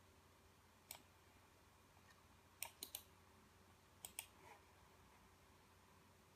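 Near silence broken by a few faint, short clicks: one about a second in, three in quick succession near the middle, and two more a little later.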